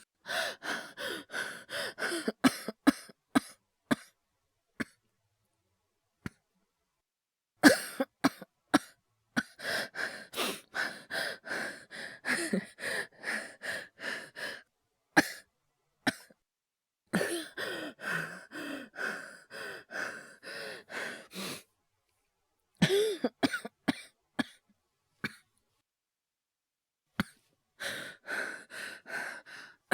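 A man's acted coughing fits: runs of rapid, repeated coughs in about five bouts, separated by short silent pauses.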